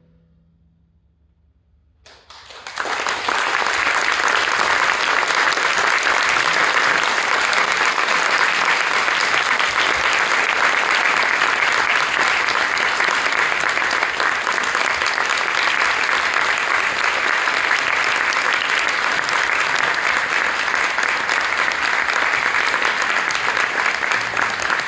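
A brief hush, then a large audience bursts into applause about two seconds in, clapping steadily and densely from then on.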